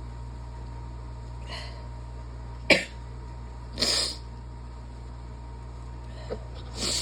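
A person sneezing during a sick, wet, barky sneezing fit: a sharp loud sneeze about two and a half seconds in and a second, longer one about a second later, with another starting right at the end.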